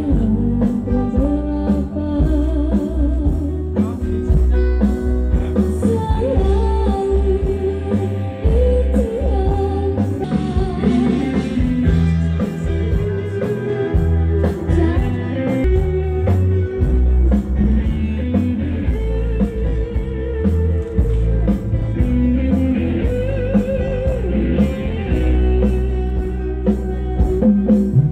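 A song with singing, played loud through a PA sound system, with heavy, steady bass.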